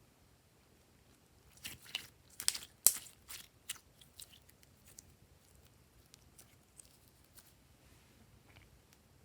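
Slime being worked by hand: a quick run of crunchy, crackling clicks about two seconds in, then only a few faint scattered pops.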